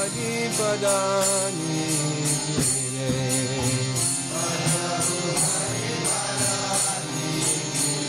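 Background Hindu devotional song: a voice singing a chant over music, with jingling percussion keeping a steady beat.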